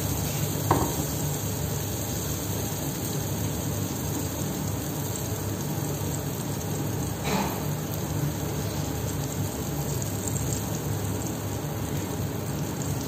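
Eggplant slices frying in freshly poured oil in a stainless steel pan: a steady sizzle, with a short click about a second in and another about seven seconds in.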